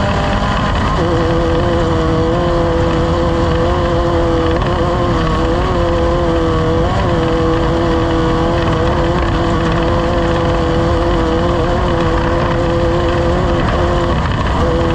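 Off-road race vehicle's engine running hard at nearly steady revs under a loud roar of wind and road noise. The revs drop slightly about a second in, and the engine tone breaks off briefly near the end.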